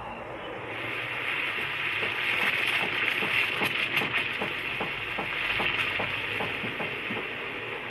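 Espresso machine steam wand hissing steadily as it froths milk in a mug, with a run of quick bubbling pops through the middle as the milk foams up.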